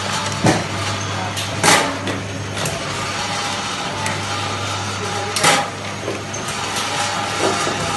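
Fully mechanical two-head linear cup fill-seal machine running: a steady motor hum under a few sharp mechanical clanks at uneven intervals, the loudest about two seconds in and again about five and a half seconds in.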